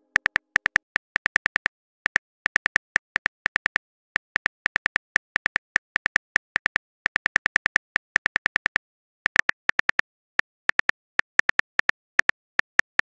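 Phone keyboard typing sound effect: runs of sharp clicks, about eight a second, broken by short pauses.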